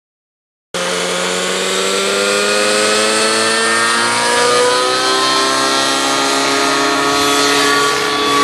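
Nitro-powered Align T-Rex 700 radio-controlled helicopter running, its glow engine and rotor cutting in suddenly about a second in. The pitch rises slowly as the head spools up and the helicopter lifts off, then holds steady.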